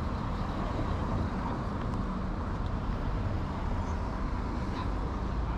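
Steady city street traffic noise: a low, even hum of vehicle engines and road noise with no single sound standing out.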